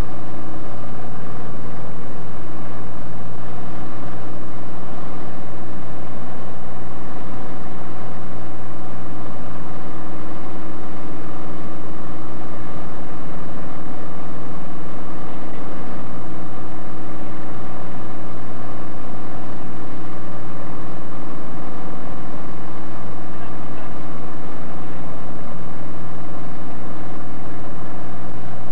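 Light aircraft's piston engine and propeller running steadily in cruise, heard from inside the cabin as a loud, unchanging drone with several steady tones.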